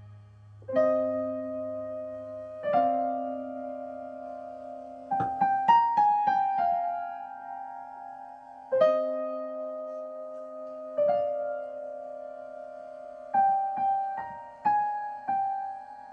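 Slow, gentle solo piano music: single notes and chords struck a second or two apart and left to ring out, with a quicker run of notes about five seconds in and again near the end.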